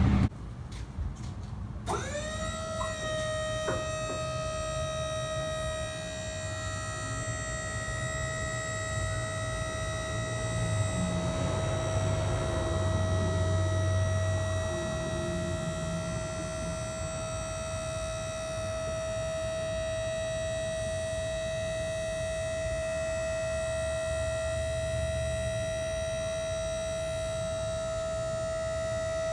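12-volt DC electric motor of a KTI double-acting hydraulic power unit starting up about two seconds in with a quick rise in pitch, then running with a steady high whine as it pumps fluid to tilt the trailer deck up.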